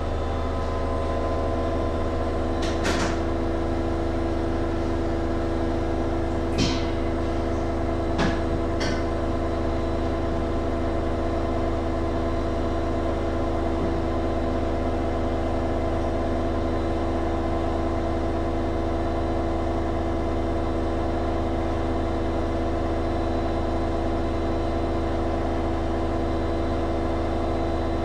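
Schulthess washing machine spinning its drum at a steady high speed, with a constant motor whine and hum. A few short clicks sound about 3, 6 and 8 to 9 seconds in.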